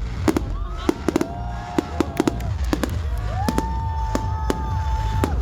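Fireworks show: aerial shells bursting in quick, irregular succession, a dozen or more sharp bangs over a continuous low rumble.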